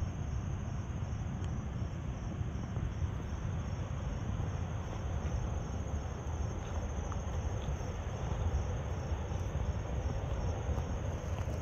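Insects trilling steadily, a rapid even pulsing in a high register, over a constant low outdoor rumble.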